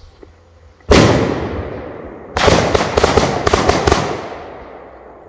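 Fireworks going off: one loud bang about a second in, then a rapid string of about eight sharp cracks over a second and a half, each ringing away with echo.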